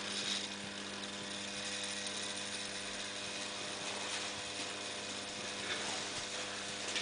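Electric carbon arc lamp burning, giving a steady hiss over an even mains-type hum, with fine rapid crackling from the arc.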